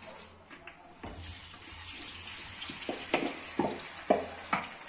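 Sliced raw potatoes and onion tipped into a pan of hot oil: a hiss of sizzling starts suddenly about a second in and holds steady, with several knocks and scrapes of slices and the bowl dropping into the pan in the second half.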